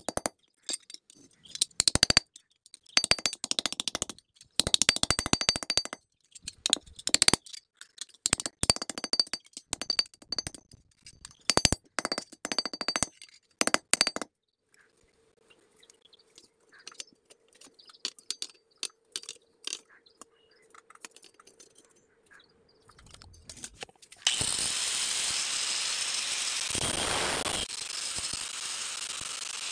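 A small hammer tapping a thin copper sheet against a steel sledgehammer head used as an anvil: quick clusters of light, ringing metal taps for about the first 14 seconds. After a quiet stretch, a steady motor-and-disc noise starts about 24 seconds in and keeps going, typical of an electric angle grinder running.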